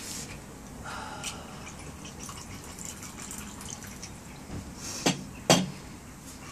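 Whiskey poured from a bottle into a glass over ice, dripping and trickling. Near the end come two sharp knocks about half a second apart as the glass bottle is set down on a wooden table.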